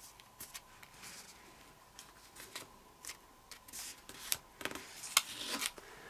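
A sheet of kami origami paper rustling and crinkling as it is folded and creased by hand, with several sharp crackles of the paper in the second half.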